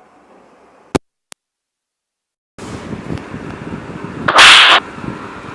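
A comedy slap sound effect played back through a speaker: one loud, sharp smack lasting about half a second, about four and a half seconds in, over a steady playback hiss. A click comes about a second in, as the earphones are unplugged.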